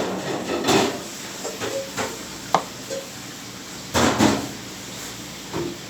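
Intermittent knocks and clatter of hand butchering at a cutting table, as beef and tools are handled and set down, with one sharp click about two and a half seconds in and the loudest knocks about four seconds in.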